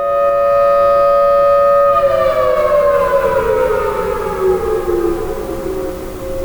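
Mechanical outdoor warning sirens of the tornado-siren test, a Federal Signal Thunderbolt 1000T and an American Signal T-128, sounding loudly together. For about two seconds both hold a steady tone; then one winds down, its pitch falling over the next three seconds, while the other keeps sounding its steady tone.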